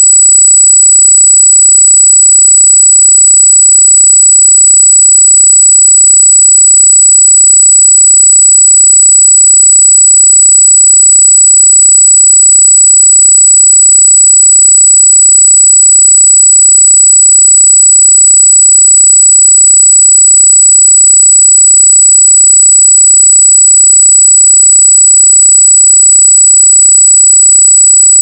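A loud, steady high-pitched electronic squeal, one shrill tone with several fainter tones beneath it, unchanging throughout; it is a recording artifact of unknown origin, not a sound from the scene.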